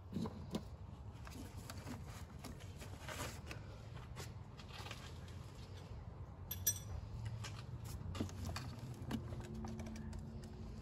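Scattered light clicks and taps of a hand tool working on the high-pressure fuel pump's mounting bolts, with one sharper metallic clink about six and a half seconds in, over a low steady rumble.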